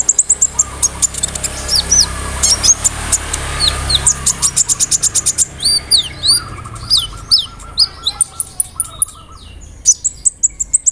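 A kolibri ninja sunbird singing a fast, varied song: rapid runs of sharp high ticks and chirps, upward-hooked whistled notes, and a buzzy trill about six seconds in, the kind of mixed song with mimicked phrases kept birds are trained on.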